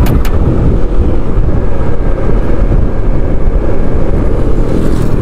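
Steady, loud rush of wind and road noise buffeting the microphone on a moving Honda ADV 160 scooter.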